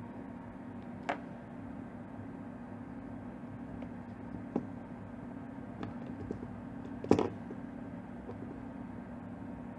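LM386 audio amplifier's speaker giving off a steady low hum with hiss while it has no input signal. Sharp crackles break in about a second in and at about four and a half seconds, and the loudest comes around seven seconds.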